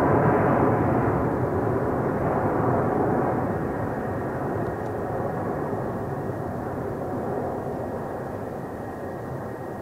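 Boeing 777-200's twin turbofan engines climbing out after takeoff: a steady jet roar that fades evenly as the airliner draws away.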